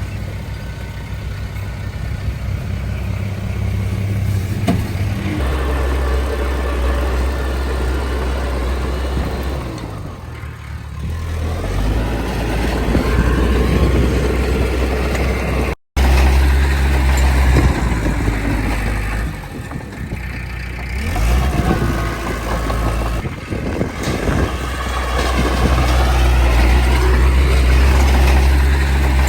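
Diesel engine of earthmoving machinery running under changing load, its pitch and level stepping up and down as it revs and settles. There is a brief sudden break about halfway through.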